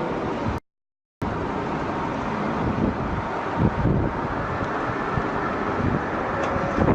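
Wind buffeting the microphone over a steady broad roar. The sound cuts out completely for about half a second near the start.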